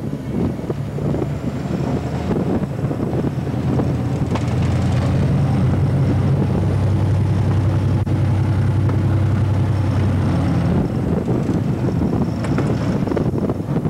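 GT22 diesel-electric locomotive running as the train rolls along the track, a steady low engine hum that grows heavier and steadier from about four seconds in until near the end, with a few sharp clicks near the end.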